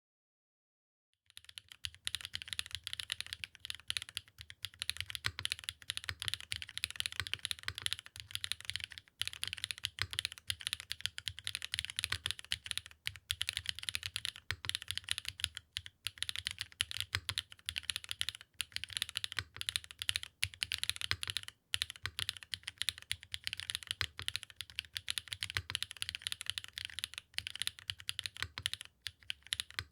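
Continuous fast typing on an ORI CLS-3//65 custom mechanical keyboard, with HMX Lanikai switches, GMK Nines keycaps, an aluminium plate, case foam and a top and O-ring mount: a dense, unbroken run of keystroke clacks. The typing starts a little over a second in.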